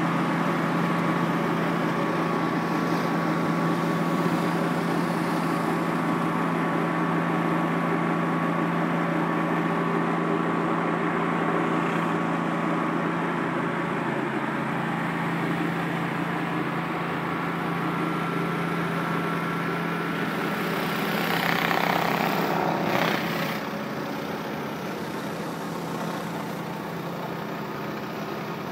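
A pressure washer running steadily, its engine and pump humming under the hiss of water jets from a rotary surface cleaner on concrete. About three-quarters of the way through, the spray hiss swells for a couple of seconds, then the sound settles a little quieter.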